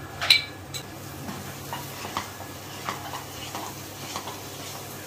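Wooden spatula stirring and folding thick rice-flour and milk dough with ghee in a nonstick pan: soft, irregular scraping strokes. A sharp knock about a third of a second in is the loudest sound.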